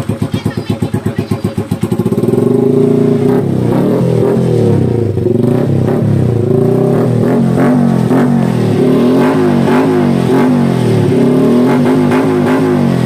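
Honda TMX 125 Alpha's single-cylinder four-stroke engine running through a freshly fitted SC Project slip-on canister on a 51 mm elbow. It idles with an even pulsing beat for about two seconds, then is revved up and down repeatedly. This is the sound check for exhaust leaks at the new elbow joint.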